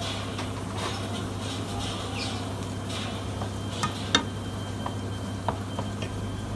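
A few sharp clinks of a cooking utensil against a pot over a steady low hum, the loudest about four seconds in.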